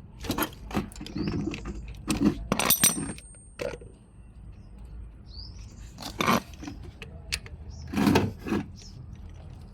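A metal spanner clinking and knocking on a Honda Dio scooter's oil drain bolt, in scattered sharp metal clicks with a brief ring about three seconds in.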